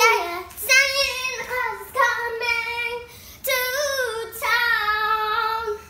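A girl singing in several phrases with long held notes, the last note held for over a second.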